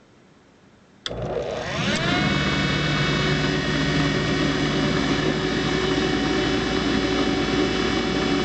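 Maytag WU882 dishwasher's motor clicks on about a second in, spins up with a rising whine, then runs steadily with a whine and hum. The drain pump turns this time instead of stalling, so the machine pumps out.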